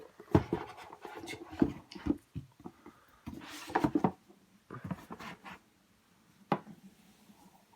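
Cardboard game pieces and a small plastic stand being handled and pressed together: a run of light clicks and taps with brief rustling, and one sharp click about six and a half seconds in.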